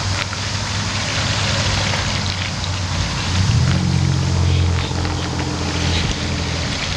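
Rainwater swirling down a whirlpool into a culvert: a steady rush of draining water with small splashes and gurgles. Under it runs a low hum that fills out into a fuller drone from about three seconds in until shortly before the end.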